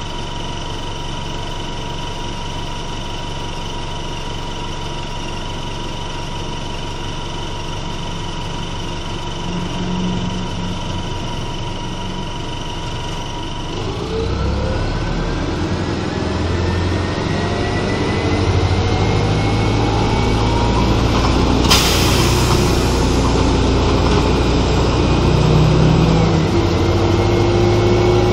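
Engine of a 1996 Nova Bus RTS transit bus, heard from inside: a steady idle with a high whine. About halfway through the bus pulls away, the engine and drivetrain whine rising in pitch and getting louder as it accelerates. There is a brief hissing burst about three quarters of the way in, and the pitch drops briefly near the end.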